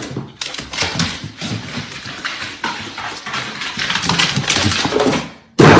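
A dog's paws and claws clattering in quick, irregular taps as it runs down wooden stairs and across a hardwood floor. Near the end comes a brief, much louder thud.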